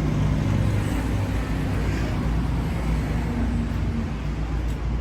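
City street traffic: motor vehicles running and passing with a steady low engine rumble.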